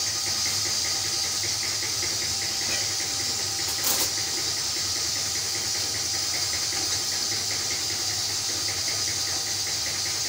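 Steady hiss and low hum of kitchen background noise, with a faint regular ticking. A single sharp metal clink about four seconds in, a steel spoon against a steel pot of sugar and water being stirred for syrup.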